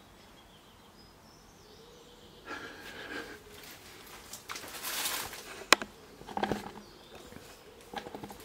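Mostly quiet, then scattered rustling and handling noise as people shift about in a confined dark space, with one sharp click a little past halfway.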